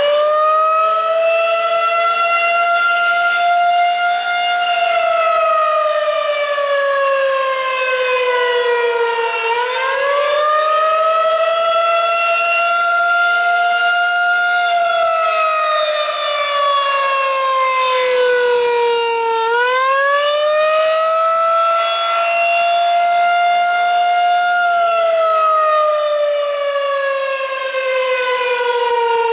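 Federal Signal 2001-SRN/DC electromechanical warning siren sounding the Attack signal: a loud wail that rises quickly, holds for a few seconds, then slowly falls, about every ten seconds, three times over.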